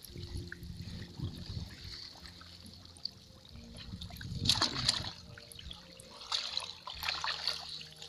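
Swamp water sloshing and splashing, with louder splashes about halfway through and again near the end.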